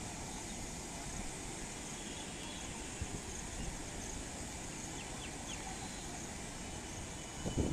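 Steady rushing noise of a river in flood, mixed with wind on the microphone, and a brief louder gust near the end.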